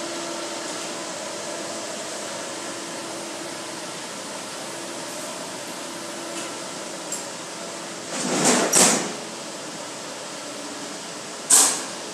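Steady mechanical hum with a faint steady tone running under it; a short double rushing sound about two-thirds of the way through and a sharper, briefer one near the end.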